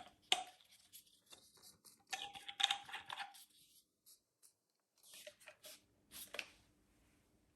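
Handling noise from the grinder's side handle and parts being picked up and moved: a sharp click just after the start, then bursts of rustling and scraping about two seconds in and again around five to six seconds in.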